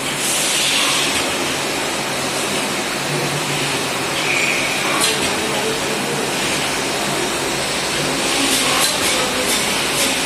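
Versort+ automatic nut thread checking and sorting machine running: a steady mechanical hiss and whir, with short hissing surges and a few sharp clicks in the second half.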